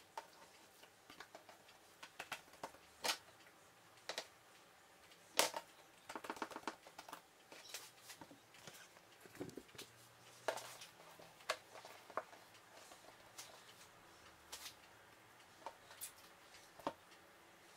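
Faint, irregular taps and soft clicks of hands folding and pressing an oiled sheet of dough on a wooden tabletop, with a quick flurry of small taps about six seconds in.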